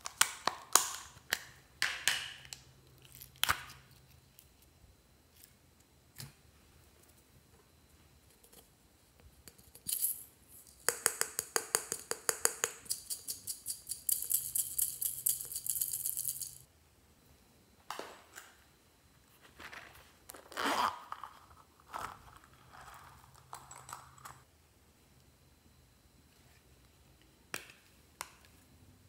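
Small plastic cases and containers being handled and clicked open by hand, with sharp clicks and snaps. There is a fast run of even clicks in the middle, followed by a few seconds of dense crackling.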